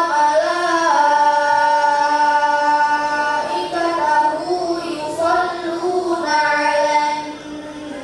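A child reciting the Qur'an in melodic chant (tilawah) through a handheld microphone, holding long, ornamented notes with short breaths between phrases.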